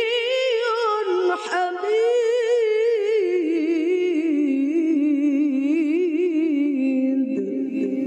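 A woman's voice reciting the Quran in the melodic tilawah style into a handheld microphone: one long ornamented phrase with heavy vibrato, pitched higher at first, then sinking lower and tailing off near the end.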